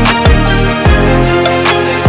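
Background music with a steady drum beat: deep kick-drum hits that drop in pitch, a ticking cymbal, and held bass notes.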